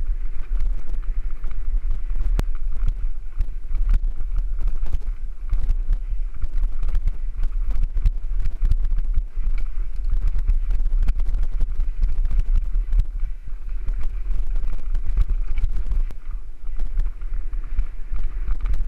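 Mountain bike ridden fast down a dirt singletrack. Wind buffets the microphone with a heavy low rumble, over a constant irregular clatter of rattles and knocks as the bike bounces over the trail.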